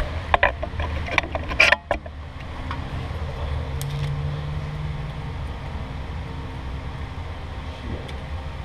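A camera being handled and set in place: several sharp knocks and clicks in the first two seconds, then a steady low hum under the car.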